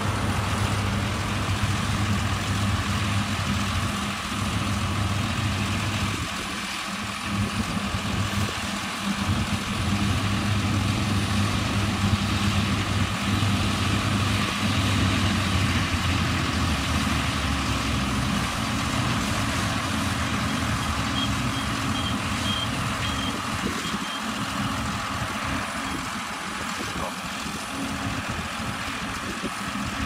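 John Deere combine harvester running under load as it cuts an oilseed crop: a steady engine drone with the noise of its header and threshing works. A short run of high beeps about two-thirds of the way through.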